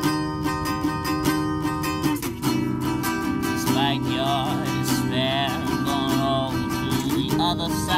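Resonator guitar strummed in a steady rhythm, chords ringing, with a few wavering sung notes over it near the middle and end.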